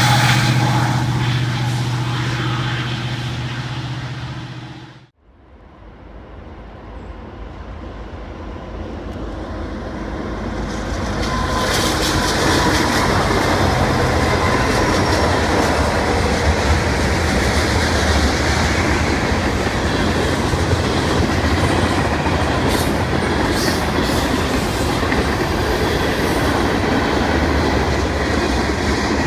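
Train sounds in two parts. First a diesel locomotive's low engine hum fades out over about five seconds and cuts off. Then rail cars roll past, building over several seconds to a steady rumble and clatter of wheels on rails.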